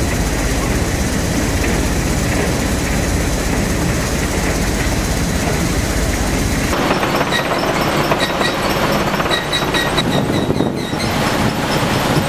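Aggregate processing machinery running steadily: a vibrating screen shaken by its vibration motors as sand and gravel rattle down the steel deck. The sound changes abruptly about seven seconds in, and faint repeated ticking follows.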